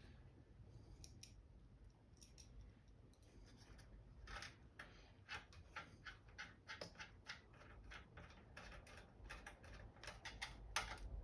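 Faint, irregular small clicks and ticks of metal parts and a small hand tool, growing more frequent after a few seconds, as hexagonal standoff bolts are screwed back into a monitor's circuit board.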